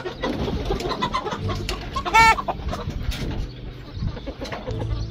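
Rainbow Ranger broiler chickens clucking as they are caught by hand and loaded into a crate, with one loud, short squawk about two seconds in. Light knocks and rustling of the handling run through.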